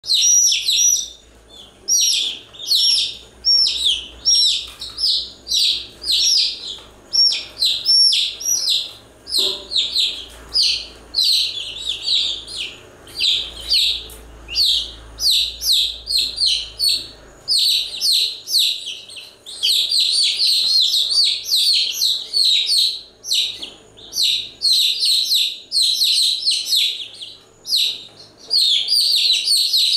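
Baby chicks peeping continuously, many short high-pitched calls several times a second in overlapping bursts.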